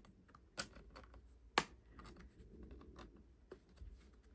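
Small screwdriver prying under the plastic-welded tabs of a laptop keyboard: faint scraping with a few sharp clicks, the loudest about one and a half seconds in.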